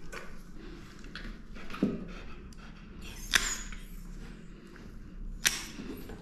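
Dog nail clippers snipping through a Maltese's long toenails: a few sharp clicks, the two loudest about two seconds apart in the second half.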